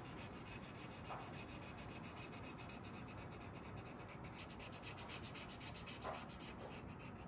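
Felt-tip marker rubbing back and forth across paper as a drawing is coloured in: a faint, steady scratchy sound.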